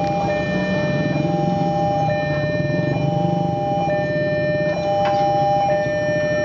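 Railway level-crossing warning alarm sounding as the boom barrier lowers: a steady electronic tone with a higher beep switching on and off about every two seconds, over street traffic noise.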